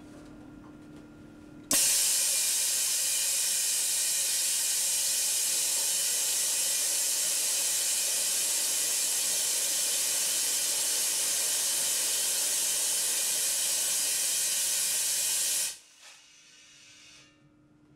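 Loud, steady hiss of compressed air blasting inside a component test machine. It starts abruptly about two seconds in, holds level and cuts off sharply near the end.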